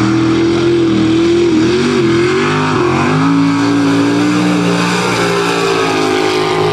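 Mud truck's engine running at full throttle through a mud pit. The pitch wavers and dips a couple of times between about one and a half and three seconds in, then holds high and steady.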